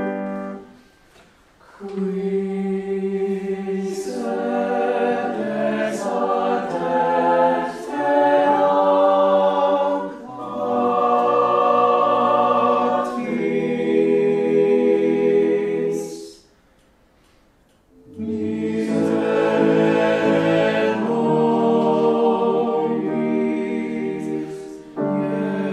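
Choir singing in sustained chords. The singing breaks off briefly twice, once just after the start and again about two-thirds of the way through, then comes back in.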